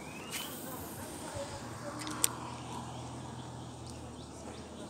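Spinning fishing reel being handled: one sharp click a little over two seconds in, and a low steady hum for about two seconds in the middle, over faint outdoor background.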